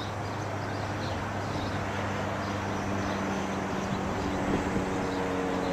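Steady drone of a distant engine under outdoor background noise, growing louder near the end, with faint high-pitched chirps repeating throughout.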